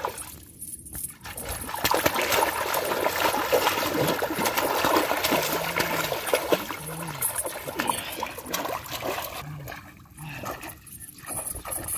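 A big fish hooked on a chain line thrashing at the water surface, churning and splashing hard. The splashing is loudest through the middle and eases briefly about ten seconds in.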